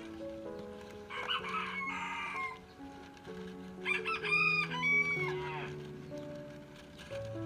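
A rooster crowing twice, about a second in and again about four seconds in, over background music.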